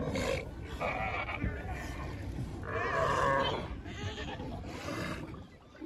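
A sea lion colony calling from the rocks: several hoarse, bleating cries, the loudest about three seconds in, over a steady low rumble.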